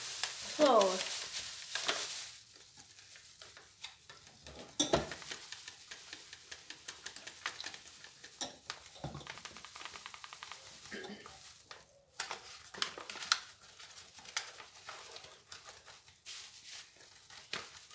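A plastic bag of flour rustling and crinkling as flour is poured from it into a mixing bowl, with scattered light knocks and clicks.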